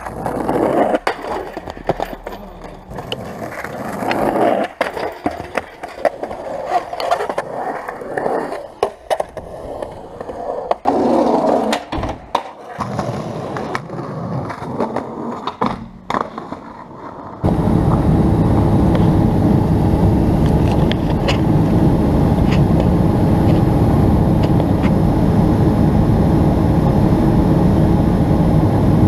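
Skateboard wheels rolling on pavement, with sharp clacks from tricks and landings, recorded close to the board. About two-thirds of the way in it cuts to the steady, loud roar of a jet airliner heard from inside the cabin.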